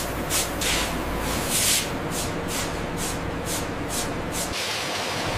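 Crushed ore sliding and scraping onto a steel conveyor tray in short swishes, about two or three a second, over a steady machinery hum. A little before the end the swishes stop and a steady hiss is left.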